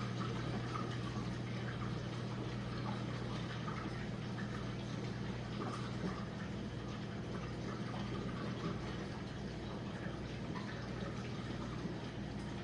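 Jenn-Air dishwasher running mid-cycle: a steady motor or pump hum under continuous water splashing and sloshing inside the tub.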